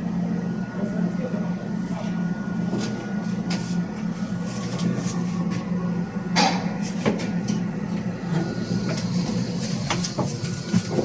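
A vehicle running with a steady low hum, with scattered clicks and knocks over it; the sharpest knock comes about six seconds in.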